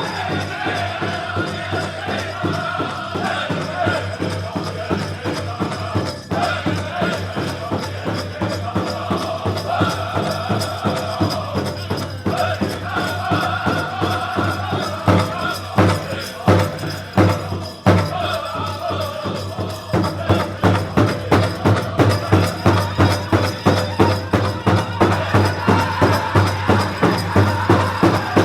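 Powwow drum group singing a grass dance contest song over a steady beat on the big drum. Partway through come several separate heavy beats, and the drumming then comes back louder and even.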